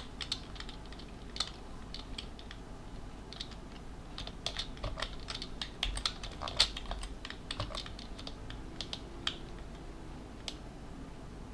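Typing on a computer keyboard: irregular key clicks, coming in quick runs with short pauses between them.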